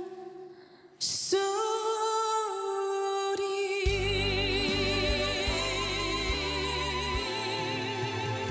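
A woman singing a Korean trot ballad with accompaniment. After a brief pause she comes in about a second in on a long held note with vibrato. Bass and band accompaniment join under the held note about halfway through.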